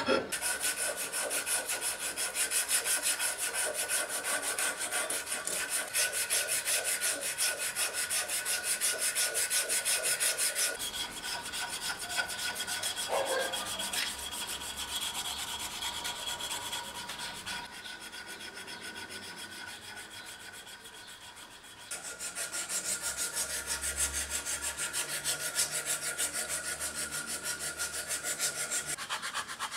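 Hand file rasping back and forth over a rosewood knife handle and its brass bolster in quick repeated strokes. The strokes turn quieter for a few seconds past the middle, then come back.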